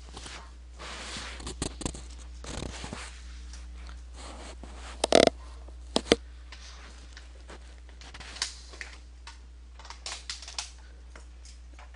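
Scattered clicks and rustling at a computer desk over a steady low hum, with a pair of sharper knocks about five and six seconds in.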